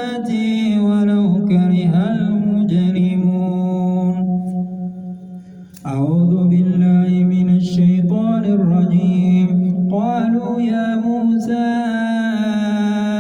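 A man's voice reciting the Quran in a slow melodic chant, holding long drawn-out notes, with a short break for breath about five seconds in.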